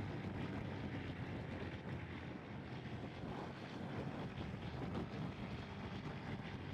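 Ducati Streetfighter 848's V-twin engine running while riding in traffic, under a steady rush of wind on the microphone.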